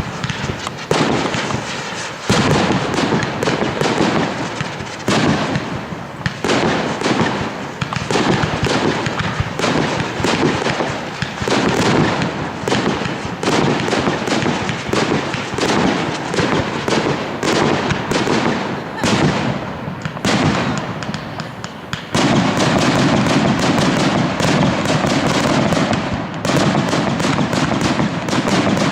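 Fireworks display: a rapid, continuous series of aerial shell bangs and crackles, growing denser and louder for the last several seconds.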